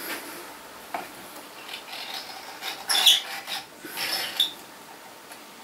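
Small clicks, scrapes and squeaks of hands handling 00 gauge model railway stock and track. There is one click about a second in, then a cluster of scrapes and squeaks around the middle, the loudest about three seconds in.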